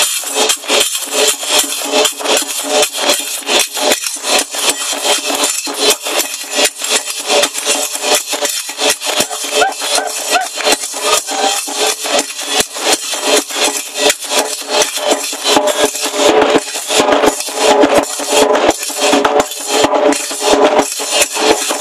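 Qraqeb, large iron Moroccan double castanets, clacking in a fast, steady rhythm, with hand claps, playing Berber folk music.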